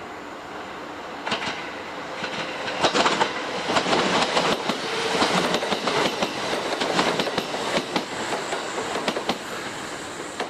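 Electric train running over the station tracks, its wheels clattering over rail joints and points; the clacking picks up about a second in, is loudest in the middle and eases off near the end.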